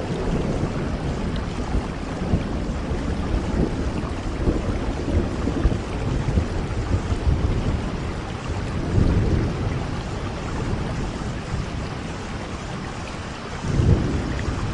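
Steady rain, with low rumbles swelling about nine seconds in and again near the end.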